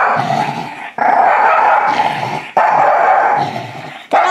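A Shiba Inu giving a run of long, rough, drawn-out cries back to back, each lasting about a second and a half, while a winter vest is being put on him: he is protesting the dressing.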